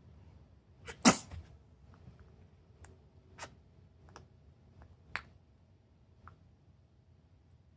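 Two-month-old baby's mouth clicks and smacks, the tongue and lips popping in short sharp clicks at irregular intervals, the loudest about a second in.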